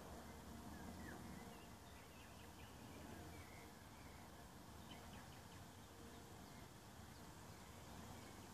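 Near silence outdoors: faint short bird chirps now and then over a low steady hiss.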